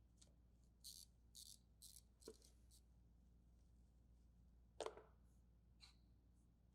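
Near silence, with a few faint short clicks and scrapes in the first couple of seconds and one more click about five seconds in.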